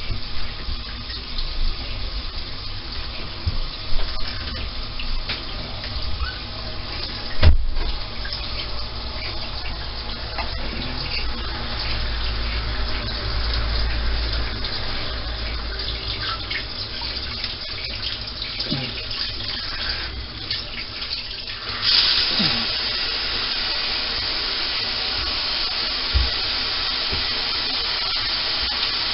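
Water spraying from a shower head, splashing unevenly, with one sharp knock about a quarter of the way in. About three-quarters of the way in the sound changes to a steadier, brighter hiss of spray.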